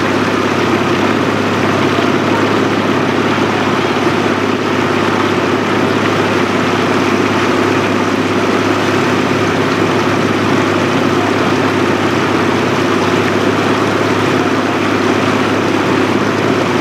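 Outboard motor of a coaching launch running steadily at low speed close by, a constant engine drone with no change in pitch.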